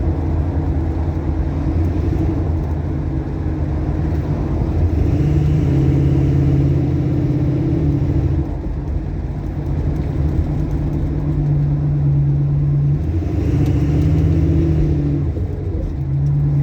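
Classic Ford Mustang Mach 1 engine running under way on a road test drive, its note steady with several step changes in engine speed, up about five seconds in and again near the end.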